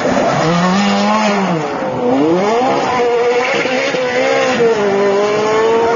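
Sports car engines revving as the cars pull away and drive past, the engine note rising and falling several times.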